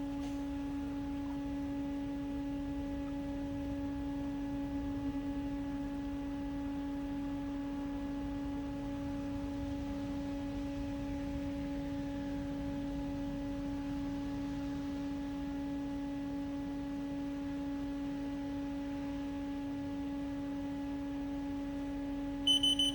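Steady electrical hum of a powered-up Haas DT1 CNC machine, one low tone with fainter higher tones above it. Near the end the control beeps, the sign that it is ready after rebooting.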